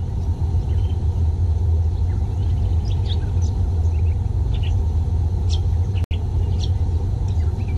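A steady low rumble, with small birds chirping faintly above it; the sound cuts out for an instant about six seconds in.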